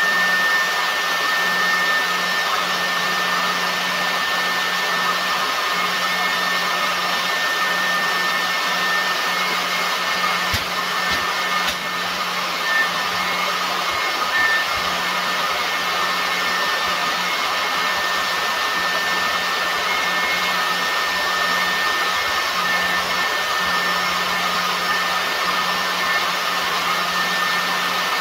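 Oxy-fuel pattern-tracing cutting torch burning through steel plate: a steady hiss with a thin high tone running through it, with a brief knock about eleven seconds in.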